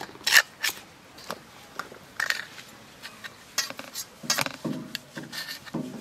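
Metal spatula cutting a fried egg on a stainless steel plate, its edge clinking and scraping against the steel in a series of sharp, irregular strikes.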